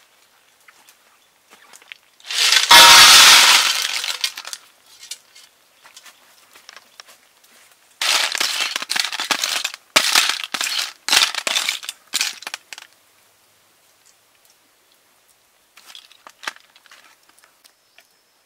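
Close-up sounds of eating cooked snails: a long, loud slurp about two seconds in, then a run of shorter slurps a few seconds later. Faint clicks of the shells come near the end.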